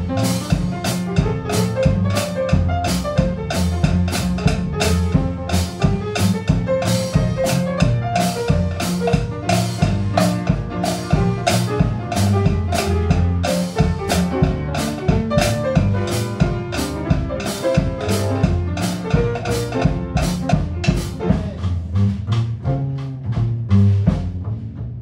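Jazz rhythm section of piano, double bass and drum kit playing at a steady swing tempo, about two to three beats a second. The piano carries the tune over the double bass while the clarinet, trumpet and trombone rest. The drum beats thin out near the end.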